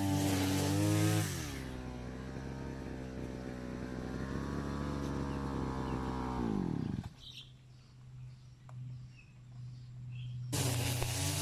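Grass-cutter (brush cutter) engine running fast, dropping to a lower speed about a second in, then winding down and stopping about seven seconds in. After a few quiet seconds, a loud rushing sound starts abruptly near the end.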